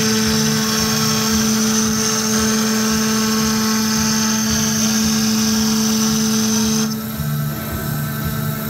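VFD-driven CNC router spindle running at a steady high whine while its bit cuts grooves into a board, with a dense cutting hiss over the whine. About seven seconds in the cutting hiss stops and the spindle whine goes on alone.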